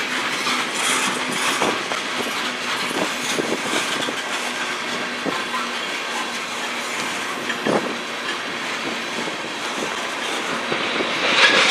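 Freight cars of a manifest freight train rolling steadily past, their wheels clicking over the rail joints.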